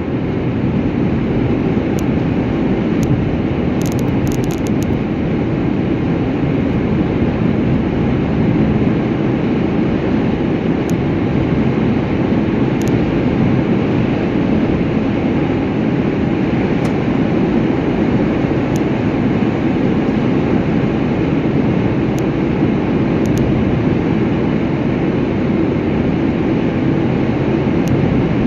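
Steady rumble and hiss of a moving vehicle, with a few faint clicks.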